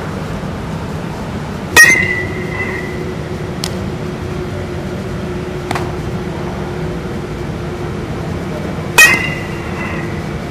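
A baseball bat striking ground balls twice, about seven seconds apart, each a sharp crack with a short ringing ping after it, with a few fainter clicks between and a steady hum underneath.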